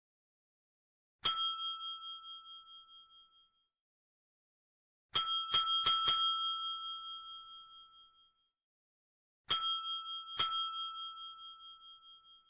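Desk bell (service bell) struck and ringing out: one ding, then four quick dings about four seconds later, then two more spaced about a second apart. Each strike rings a bright metallic tone that fades over a couple of seconds.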